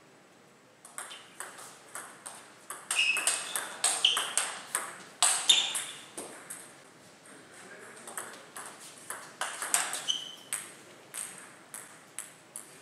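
Table tennis rally: the ball clicking off the table and the rackets in quick alternation. It starts about a second in and is densest in the middle, with a few short high squeaks among the hits. The clicks come more sparsely near the end.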